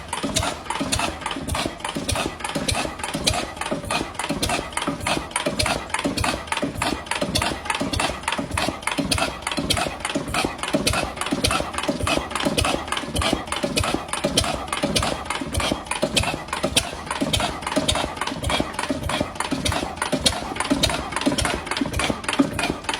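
An old overhauled engine running steadily at idle on a test run, with an even, rapid pulsing beat that does not change pace.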